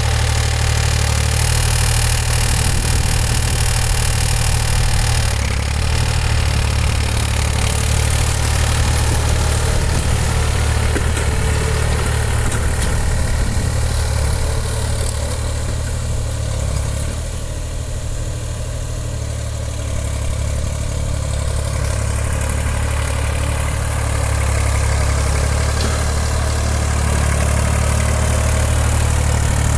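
Massey Ferguson 235 tractor engine running steadily with its air filter removed, which gives it a strange-sounding intake noise. It eases off a little for a few seconds about halfway through, then comes back to the same level.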